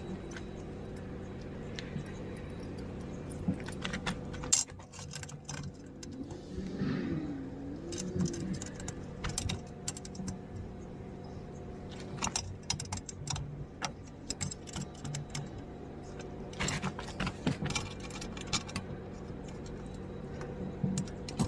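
Small metal parts and hand tools clinking and tapping against a steel plate and steel linear guide rails, in scattered clusters of sharp clicks, over a steady low hum.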